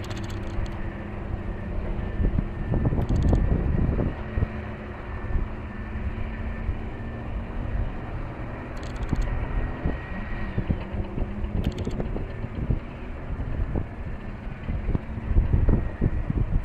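A heavy vehicle's engine running steadily with a low rumble, and wind buffeting the microphone in gusts, loudest about three seconds in and again near the end.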